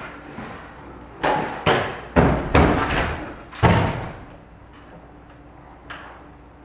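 A kick scooter and the rider's feet knocking and thumping onto the raised platform at the top of a small homemade ramp, about six knocks in a row over a couple of seconds.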